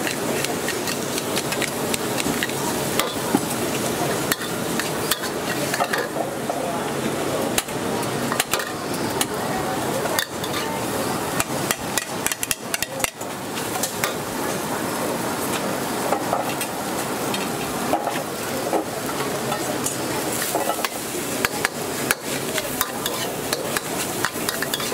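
Stir-frying in a wok: a metal wok spatula scrapes and clanks against the pan over a steady sizzle of frying chicken, cabbage and rice, with many sharp clinks throughout.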